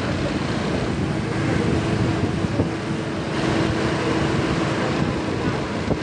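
Wind rushing over the microphone of a moving motorbike, with the engine running and road traffic noise underneath.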